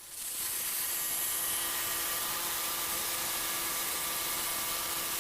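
Hudson Sawyer portable sawmill running, a steady hiss with a faint hum under it, coming in about a quarter second in and holding level.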